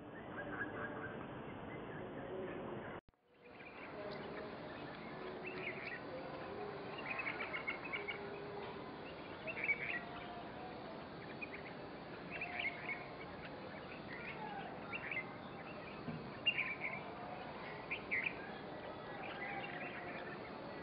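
Red-vented bulbuls chirping: short, scattered calls every second or two over a steady background hiss, with a brief dropout about three seconds in.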